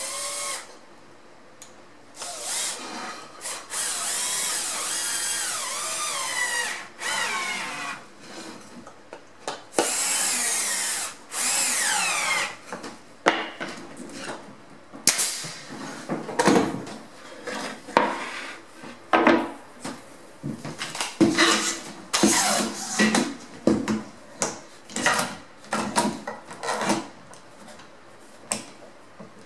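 A Festool cordless drill-driver driving screws into wood: two long runs of a motor whine whose pitch dips and falls as each screw seats. After that come many short knocks and clicks of clamps being set and tightened on a wooden panel.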